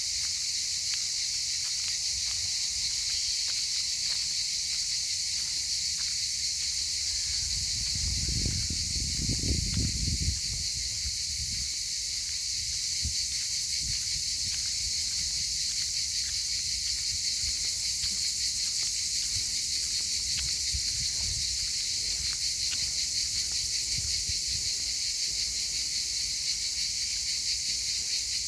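A dense, steady chorus of insects, a shrill high chirring that holds without a break. About eight seconds in, a low rumble swells for a couple of seconds and then fades.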